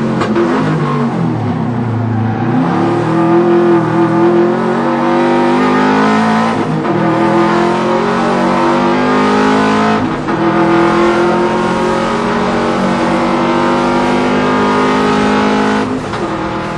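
Subaru WRX's turbocharged flat-four engine driven hard: the revs dip and come back up about two seconds in, then climb through two upshifts, about 7 and 10 seconds in, hold high, and fall away near the end.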